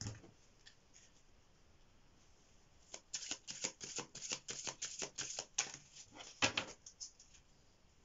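A deck of cards being shuffled by hand: after a quiet start, a quick run of papery card slaps and slides begins about three seconds in and goes on for some four seconds.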